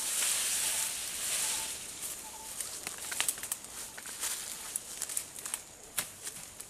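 Tall grass and undergrowth rustling as it is pushed through, loud and hissing for the first two seconds, then quieter with scattered sharp snaps and crackles of stems.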